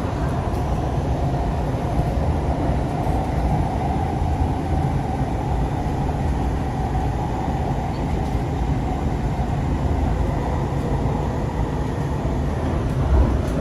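Sound Transit Series 2 light rail car running at steady speed, heard from inside: a continuous rumble with a faint steady whine.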